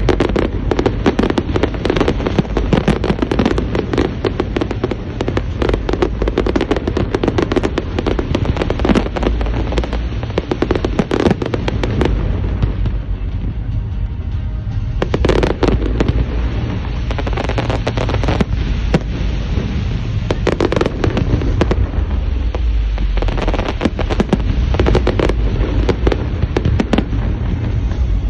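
Fireworks salute: a dense run of booming launches and crackling bursts in quick succession, thinning briefly about halfway through before building up again.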